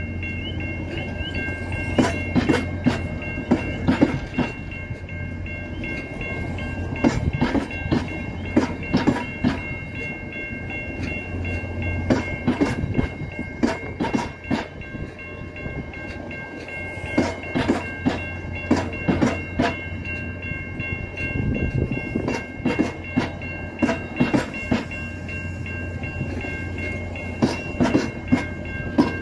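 VIA Rail Canadian's stainless-steel passenger cars rolling past at moderate speed, their wheels clicking over rail joints in clusters every few seconds over a steady rumble. A steady high-pitched ringing carries on underneath.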